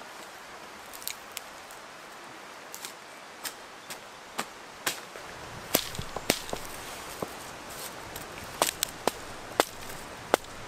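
Sharp wooden knocks of a mallet striking willow spars pinned across water-reed thatch, at an irregular pace. The knocks are sparse at first, then come faster and louder from about halfway.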